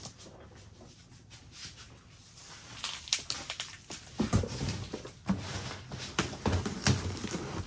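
Cardboard boxes being handled on a table: quiet at first, then from about three seconds in, rustling and scraping of cardboard with several dull thumps as a carton is set down and its flaps are pulled open.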